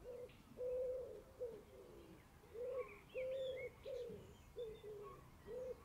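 Faint bird calls: a series of short, low, steady-pitched notes, roughly two a second, with a few faint high chirps above them.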